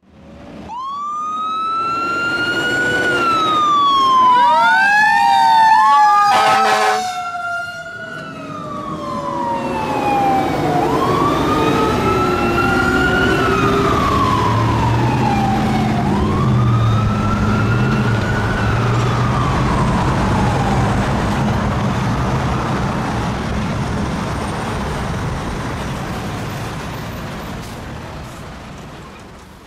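Fire engine's Federal Q2B mechanical siren winding up and coasting back down again and again, with a quick series of air horn blasts about six seconds in, the loudest moment. The truck's engine rumbles low as it passes, and everything fades out near the end.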